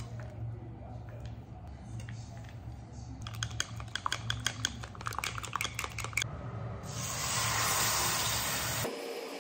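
Cooking chopsticks beating egg in a glass measuring cup, a fast run of clicks against the glass, then the egg mixture sizzling as it is poured into a hot rectangular tamagoyaki pan.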